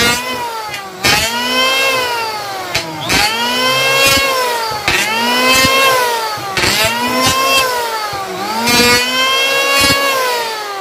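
Lotus 580-watt handheld electric planer cutting a hardwood board in repeated passes. Its motor whine rises and falls in pitch with each of about six strokes, sagging under load as the blades bite into the hard wood, with a knock at the start of each pass.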